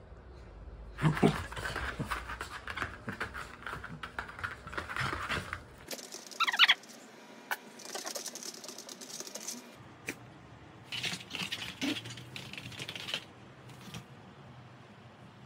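A small dog's claws and paws scrabbling and clicking on a floor mat as it spins chasing its tail, in two spells, with a short high-pitched cry whose pitch glides up and down about six and a half seconds in.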